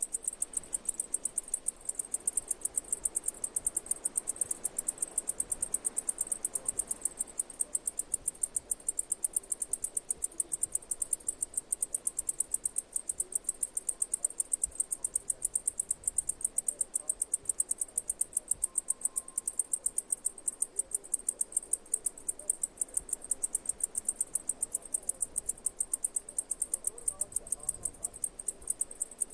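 A chirping insect: a steady, unbroken train of short, high-pitched chirps, several a second, at an even rate.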